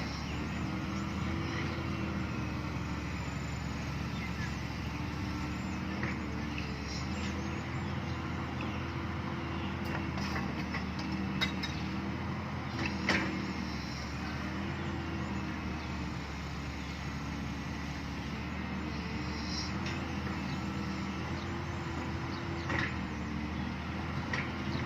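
Excavator's diesel engine running steadily under load, its pitch shifting slightly as it works. A few sharp knocks come through it, the loudest about thirteen seconds in.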